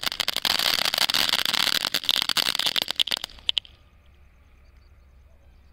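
Sunanda chatar-patar crackling ground firework burning: a hissing spray packed with rapid crackles for about three seconds, a few last pops, then it stops suddenly.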